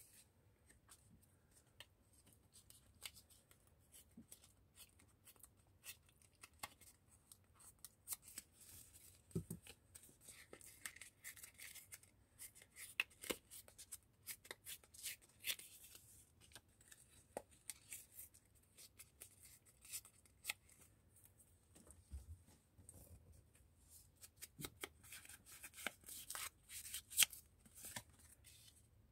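Faint paper rustling and crinkling with many small crackles and clicks, from hands handling paper and card tags and peeling the backing off a printed paper piece.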